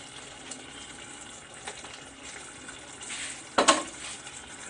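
Pot of soup simmering on a ceramic hob with a faint, steady sizzle, and a brief clatter of knocks against the pot about three and a half seconds in.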